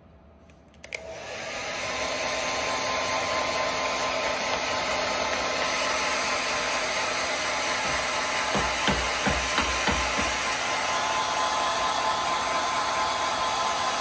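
Hand-held hair dryer switched on with a click about a second in, rising to a steady blowing whir. A few low thumps come about two-thirds of the way through.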